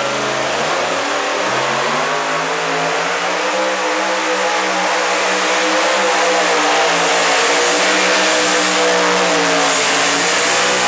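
A large engine running loudly and steadily at raised revs, its pitch drifting slightly up and down.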